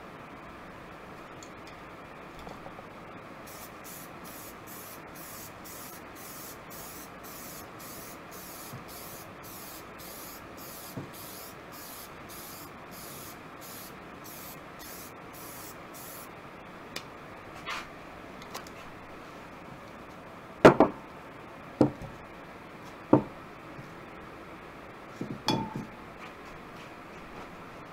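Aerosol spray paint can sprayed in quick short bursts, about two a second, for some thirteen seconds. It is followed by a few sharp knocks, the loudest about twenty seconds in.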